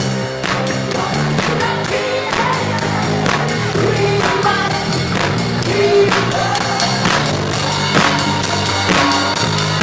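Live band playing a song: a singer over a steady drum-kit beat, with bass and keyboard.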